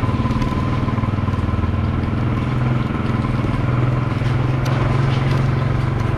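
Small motorcycle engine running steadily at low speed, a continuous low hum with an even pulse.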